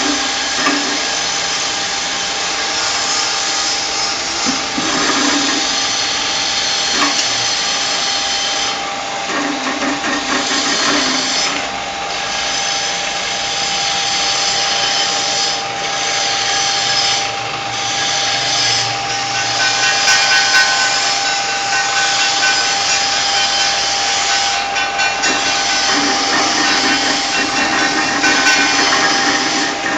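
An electric cup-ring cutting machine running under load as plastic cups are pressed into it to cut off their neck rings. It gives a steady motor whine under a loud cutting hiss that swells and drops back as each cup goes through.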